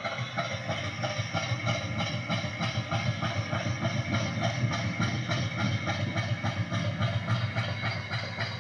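Diesel engine running with a steady, rapid rhythmic knock, played back from a diesel cold-start video.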